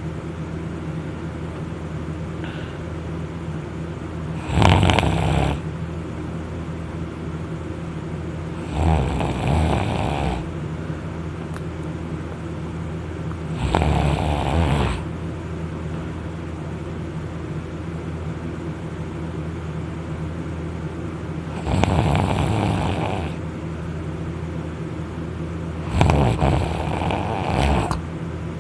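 A person snoring loudly in deep, alcohol-induced sleep while lying on their back. There are five harsh snores, each lasting one to two seconds and spaced about four to eight seconds apart, over a steady low hum.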